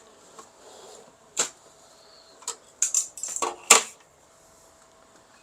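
Sharp clicks and knocks of hands working on a partly disassembled Brother laser printer's casing: one click, then a quick cluster of clicks about three to four seconds in, the last one loudest.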